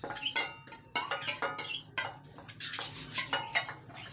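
Loose bird seed (millet, sunflower seeds and oats) rustling and rattling in a container as it is stirred, in quick irregular strokes, while a wet egg mixture is worked into the grain.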